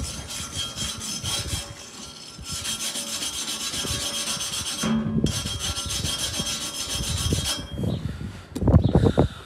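Hand wire brush scrubbed rapidly back and forth along a fresh 7014 stick weld bead on steel plate, cleaning off the slag. The rasping strokes stop briefly a couple of times, and a few low knocks come near the end.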